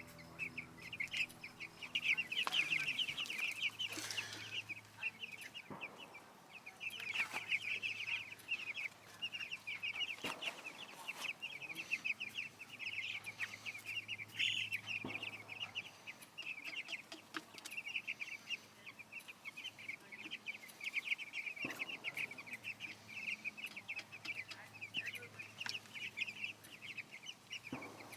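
A flock of young meat chickens peeping continuously, a dense chorus of rapid, high chirps, with a few faint knocks among them.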